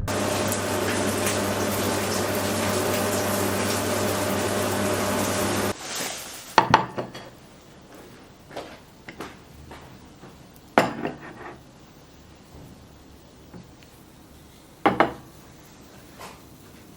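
A steady running noise with a hum stops suddenly about six seconds in. After that come a few separate clinks of dishes and utensils being handled.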